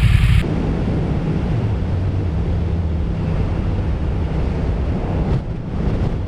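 Yamaha MT-07's 689 cc parallel-twin, fitted with an IXIL Hyperlow XL exhaust, running at a steady cruise of about 85 km/h, a low engine drone under a rush of wind. There is a short dip in the sound about five seconds in. A louder, brighter engine sound cuts off abruptly right at the start.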